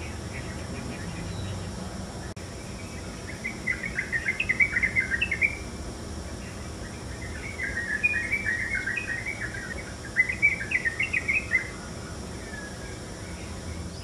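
Yellow-vented bulbul singing three bouts of rapid, jumbled chattering notes: the first about three and a half seconds in, the second about halfway through, and the third a little after ten seconds.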